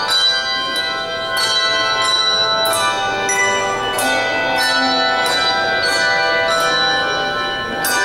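A handbell choir ringing a piece together: chords of many handbells struck at a steady pulse, a bit more than one a second, each chord ringing on into the next.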